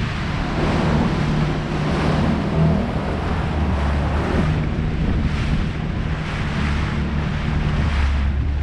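Jet ski under way: its engine runs with a steady low hum beneath the rush of water and heavy wind buffeting the microphone.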